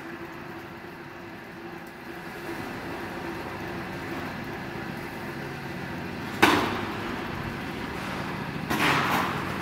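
Roofing-sheet roll forming machine running with a steady hum while a formed steel sheet is fed out through its rollers. A sudden sharp bang comes about six and a half seconds in, and a longer, rougher burst of noise follows near the end.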